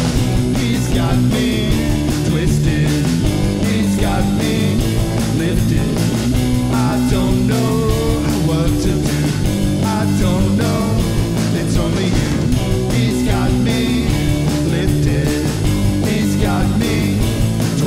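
Rock band playing: electric guitar over bass and drums, with a steady beat.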